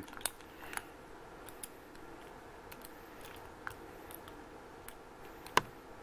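Small, scattered metallic clicks of a lock pick and tension wrench working in the keyway of a trigger lock, with one louder sharp knock near the end.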